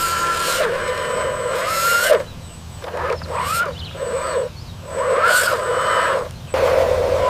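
Electric motors and gearing of RC model construction machines whining. The pitch rises and then holds, in several short stretches with sudden breaks between them.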